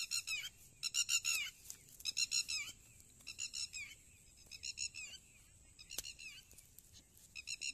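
A bird calling in repeated bursts of quick, high, downward-bending notes, a burst about every second, with a pause of two seconds or so before a last burst near the end.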